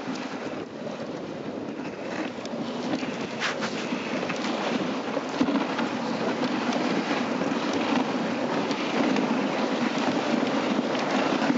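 Dog sled moving over snow: a steady hiss and scrape of the runners mixed with wind on the microphone, growing gradually louder, with a few faint knocks a few seconds in.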